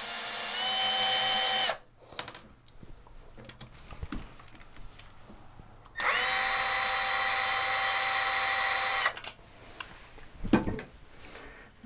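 Cordless drill/driver with a Phillips bit backing out plastic toilet-seat hinge bolts: a steady motor whine that steps up a little in pitch and stops after under two seconds, then a second run of about three seconds starting some six seconds in. A brief knock near the end.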